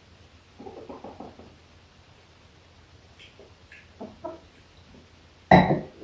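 Pet hens clucking softly in a quick run of short clucks about a second in, with a few fainter clucks or small noises later. A single loud knock comes just before the end.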